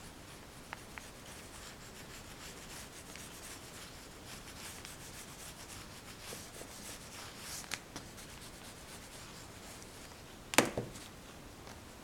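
An oil pastel rubbing and scratching across paper in many short strokes, with one sharp knock near the end that is the loudest sound.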